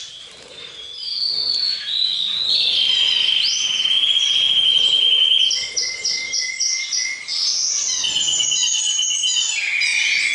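Songbirds singing a fast, varied song: a long rapid trill held at one pitch, quick runs of repeated whistled notes, and falling sweeps, one phrase following another.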